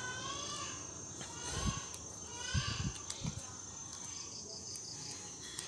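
Background chirping of insects and birds: a steady high insect whine, repeated sweeping chirps, and a short run of quick pulses about four seconds in. A few soft low knocks sound in the middle.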